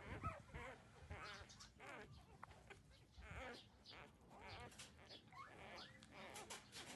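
Faint, overlapping whimpers and squeaks from nursing puppies about two weeks old: many short wavering high calls, one after another.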